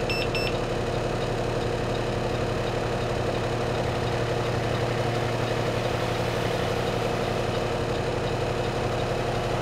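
Refuse truck's diesel engine idling steadily, heard from inside the cab. In the first half second a rapid high beeping from the blind-spot sensor's audible alert cuts off.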